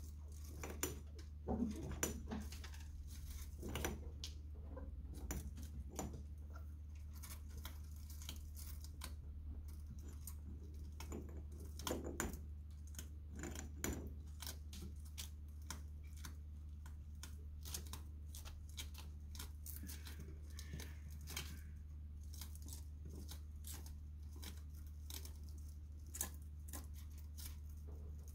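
Chinchilla gnawing a stone block fixed to the cage wire: irregular runs of quick scraping clicks from its incisors on the stone, busiest in the first few seconds and again about twelve seconds in. A chinchilla's teeth never stop growing, and gnawing stone wears them down. A steady low hum runs underneath.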